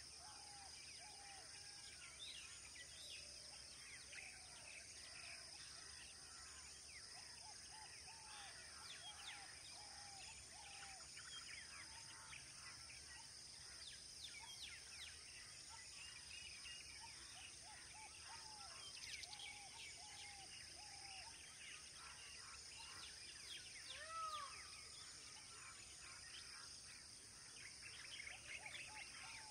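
Faint outdoor ambience of birds calling: a short arched call repeated in runs of four or five, scattered high chirps, and a steady high hiss, with one louder call late on.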